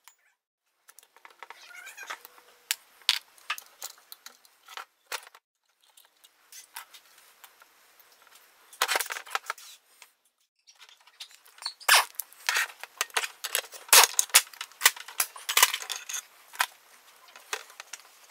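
Clicks, scrapes and knocks of hard plastic and metal Husqvarna chainsaw parts being handled, turned over and set down on a metal workbench. The clicks come sparsely at first, then in a dense flurry in the second half.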